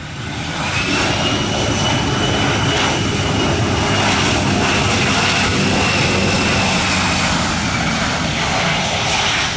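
Airliner engines running loud as the aircraft passes close. The sound swells over the first second, then holds steady with a high whine over the noise.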